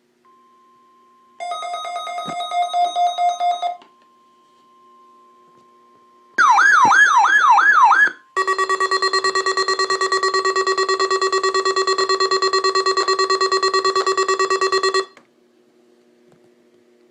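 Weather radios sounding their alert alarms one after another: a faint steady tone near 1 kHz, then a beeping alarm for about two seconds, then a warbling siren-like alarm rising and falling about three times a second, then a loud, rapidly pulsing alarm for about six and a half seconds that cuts off suddenly.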